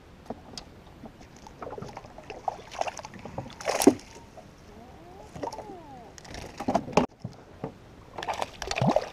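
Water sloshing and knocking against the hull of an aluminium fishing boat while a hooked corvina is reeled in, with one sharp knock a little under four seconds in. The fish splashes at the surface near the end.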